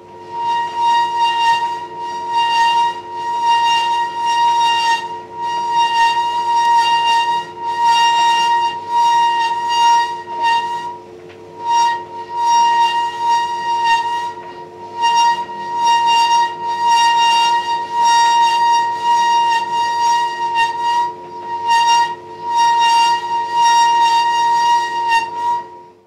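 Hotpoint tumble dryer running with a loud, high-pitched screech over a steady lower hum, the screech breaking off briefly every second or two as the drum turns. The screech is the sign of a worn rear drum bearing, the support that the drum shaft rests on.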